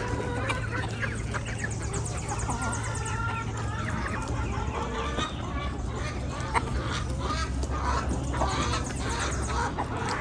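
A flock of backyard chickens clucking and calling, many short calls overlapping, over a steady low hum.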